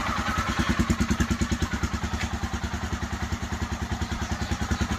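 Royal Enfield Himalayan's single-cylinder engine idling with a steady, even pulse.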